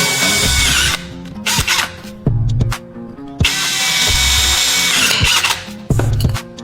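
A power tool motor running in two bursts, the first stopping about a second in and the second running from about three and a half seconds to five, over background music.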